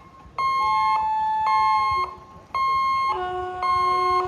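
Level-crossing gate warning buzzer beeping in a steady on-off rhythm, about one beep a second. Longer held tones overlap it twice: once shortly after the start for about a second and a half, and once, lower, from about three seconds in.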